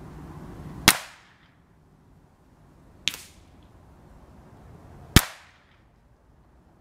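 Three .22LR shots from a Ruger 10/22 semi-automatic rifle, about two seconds apart, the second one quieter, each a sharp crack with a short ringing tail.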